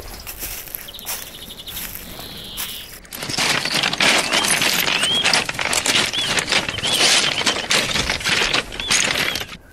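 Footsteps crunching over a dry pebble-and-gravel riverbed, with a bird repeating a short high call about once a second. For the first three seconds it is quieter woodland with a short high trill, until the crunching begins abruptly.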